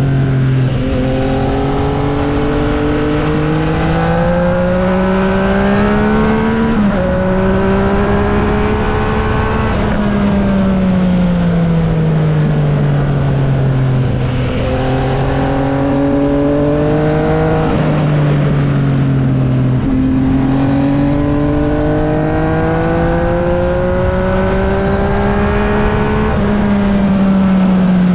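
Yamaha XSR900's inline-three engine through an SC-Project exhaust, climbing in revs with an upshift about 7 seconds in and another near 18 seconds, easing off in between and pulling again towards the end.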